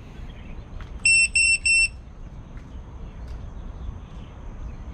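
Three short, high-pitched electronic beeps in quick succession about a second in, over a faint steady background hiss.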